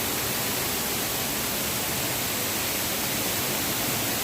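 Cave waterfall falling steadily, a constant even hiss of splashing water.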